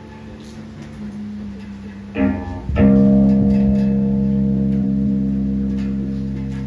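Electric guitar and bass through amplifiers: a low held note, a quick strum about two seconds in, then a loud chord struck a moment later that rings out and slowly fades.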